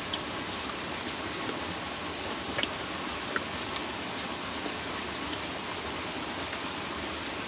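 A steady, even hiss, with a few faint clicks.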